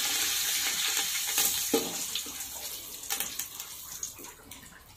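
Food sizzling as it fries in a pan, with a few light clicks of a utensil against it; the sizzle fades away steadily toward the end.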